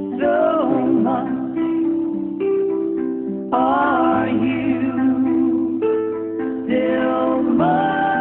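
Music: a plucked-string accompaniment under a melody line that slides between notes, ending on a long held note.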